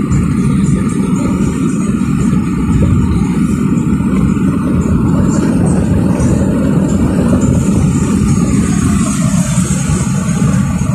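Car driving at highway speed, heard from inside the cabin: a steady, loud rumble of road and engine noise.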